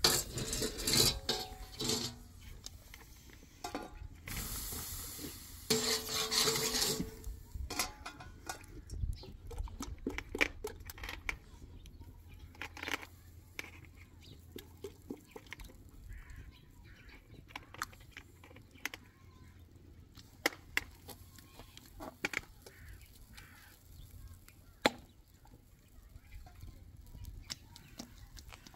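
Kitchen handling sounds from cooking: scattered clinks and knocks of pots, dishes and utensils, with a rushing, scraping noise lasting a few seconds about four seconds in.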